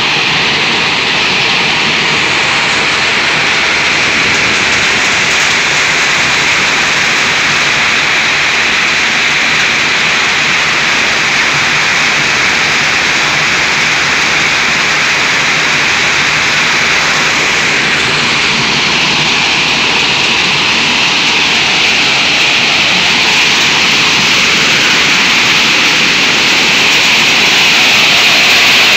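Stone-crushing plant running: a steady, loud mechanical din from the crushers, conveyors and falling aggregate, with no distinct beats or pauses.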